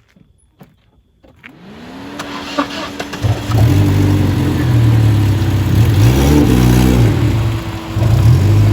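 A few light knocks, then a car engine draws near and grows loud as the car drives slowly through at low gear, its engine pitch dipping and rising again about two-thirds of the way through.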